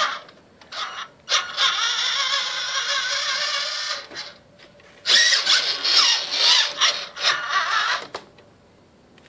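RC truck driving across a carpeted floor, its motor and gears whining in two runs of about three seconds each, the pitch wavering up and down.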